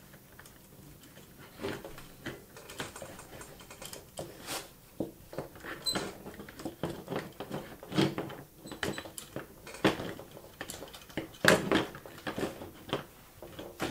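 Hard plastic toy parts of a Transformers Sky Lynx figure and Ironworks playset clicking and knocking as they are handled and fitted together: irregular light clicks and taps, with a few louder knocks.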